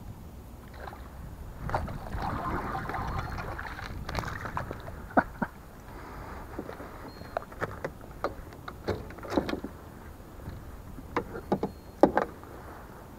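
Water sloshing and splashing beside a small plastic kayak, followed by a run of sharp knocks and clicks as gear is handled against the hollow hull.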